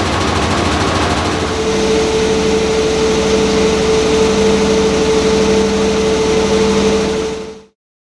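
AKAI front-loading washing machine spinning, the drum motor giving a steady whine over a low hum that settles in about a second and a half in. The sound cuts off suddenly near the end.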